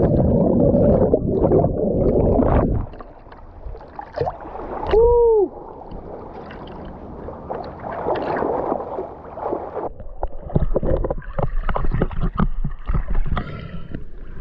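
Seawater splashing and churning around a swimmer's camera held at and under the surface, loud and muffled for the first few seconds, then lighter sloshing and small splashes. About five seconds in, a short tone rises and falls.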